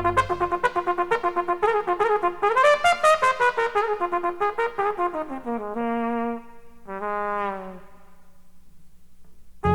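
A solo brass horn plays with the band dropped out: a quick run of rapid repeated notes that climbs and falls, then a few longer held notes and a falling glide. It trails off quietly, and the full band comes back in right at the end.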